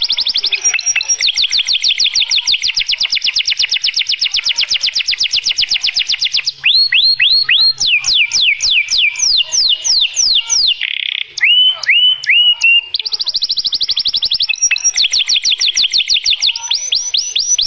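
White domestic canary singing: long, fast rolling trills of rapidly repeated high notes. About halfway through, the trills give way to a run of slower, separate downward-sweeping whistles before the fast trilling resumes.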